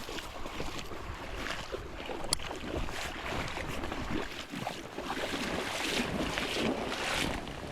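Rushing water of a high, fast creek, with wind buffeting the microphone; a single sharp click about two seconds in.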